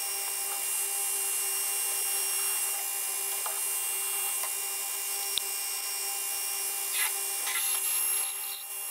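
Metal lathe running steadily, an even hum with several constant tones, while a twist drill in the tailstock drill chuck bores into a spinning aluminium hammer head. A few faint ticks from chips come through.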